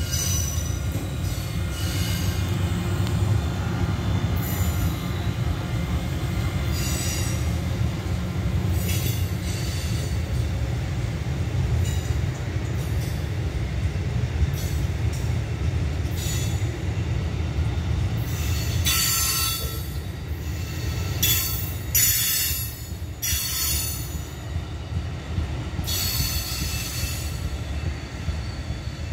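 Amtrak Keystone passenger train, an ACS-64 electric locomotive hauling Amfleet coaches, rolling past with a steady rumble of wheels on rail. In the second half there are repeated bursts of high-pitched wheel squeal as the coaches pass through the curve.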